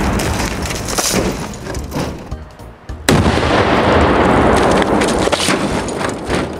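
Tannerite binary explosive, about three pounds, detonating under a TV. The rumbling tail of one blast dies away, then a second sudden blast comes about three seconds in and rumbles on as it decays.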